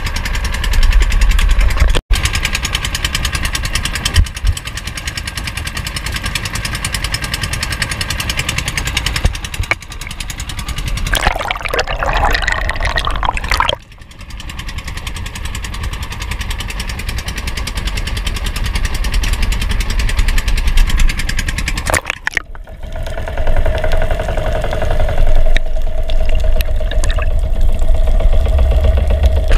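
Small outrigger boat's engine running steadily. About eleven seconds in, a splash and rush of bubbles as the diver goes into the sea, then a muffled underwater wash with a steady hum.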